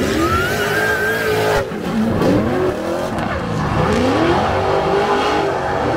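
Two drift cars running in tandem, their engines revving up and down at high revs, with tyres squealing and skidding as they slide sideways.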